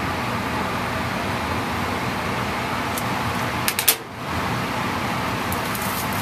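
Steady rushing hum of a biosafety cabinet's blower. About four seconds in, a quick cluster of sharp clicks, and the rushing dips for a moment before coming back.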